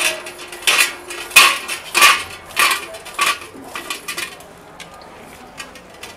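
A metal blade working on gar fish: about six sharp scraping, clinking strokes in the first three seconds, then lighter taps.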